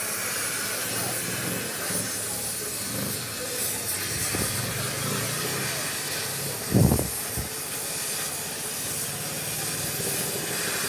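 Gas welding torch flame hissing steadily against an aluminium alloy wheel rim while filler rod is run in to build up a cracked spot. A single dull, low thump about seven seconds in.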